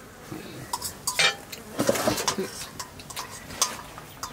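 Metal spoon scraping and clinking against a steel cooking pot and plates as cooked greens are served out, several scattered clinks with a short metallic ring.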